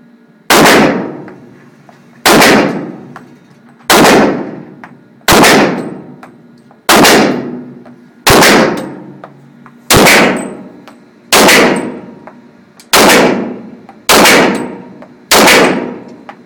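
A 9mm Glock pistol firing a slow string of about eleven single shots, one every second and a half or so, each shot very loud with a short echoing ring after it.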